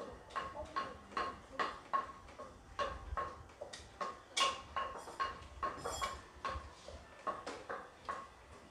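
Steady, even ticking, about two to three clicks a second, with a couple of brief higher-pitched squeaks around the middle.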